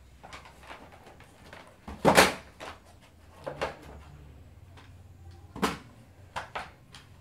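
A handful of sharp knocks and clunks at uneven intervals, the loudest about two seconds in and another about five and a half seconds in.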